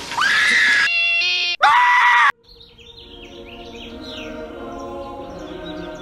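A person screaming in long, loud cries that cut off abruptly about two and a half seconds in. Then birds chirp over soft music.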